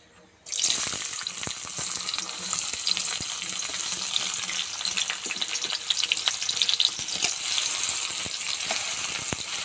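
Chopped onions hitting hot oil with nigella seeds in a kadai, starting to sizzle suddenly about half a second in and frying on with steady crackling. Near the end they are stirred with a metal spatula.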